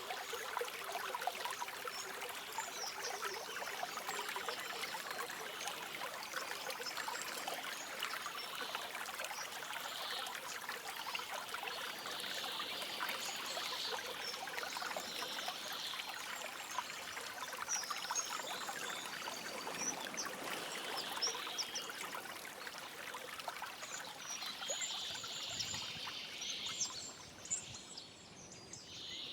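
Forest stream flowing in a steady rush, with songbirds chirping and calling over it. The water briefly quietens near the end.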